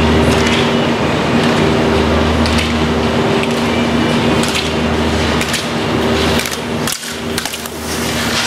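Steady low machine hum of an indoor ski hall, with a run of sharp clacks from about halfway through as a slalom skier hits the plastic gate poles on the way past.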